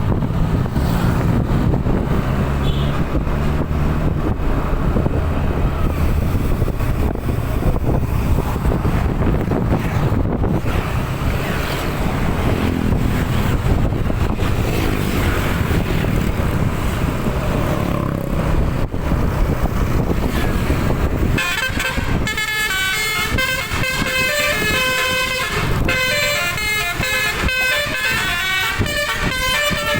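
A heavy vehicle's engine running with road noise, then, about 21 seconds in, a bus telolet horn starts: a multi-trumpet air horn playing a quick melody of shifting notes.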